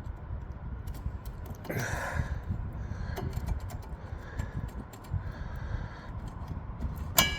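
Small clicks and rattles of metal brake pads and caliper parts being handled as the worn front pads are worked out of a scooter's brake caliper. There is one sharp, ringing metal clink near the end.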